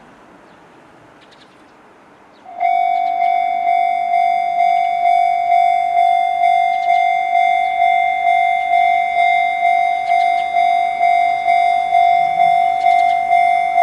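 Japanese railway level crossing's electronic warning bell with the 'Chichibu' tone, starting about two and a half seconds in and then ringing in even strikes, about two a second.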